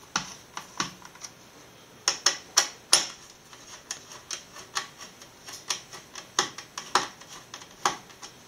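A screwdriver backing out the four screws that hold down the CPU heatsink of a Dell Inspiron 2320 all-in-one, with a string of sharp, irregular clicks as the screws reach the top of their threads and come free.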